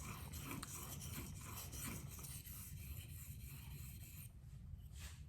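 K390 steel knife blade drawn in repeated strokes across a Venev 400F diamond waterstone, a rhythmic scraping about two or three strokes a second. The strokes stop about four seconds in, and a single click follows near the end.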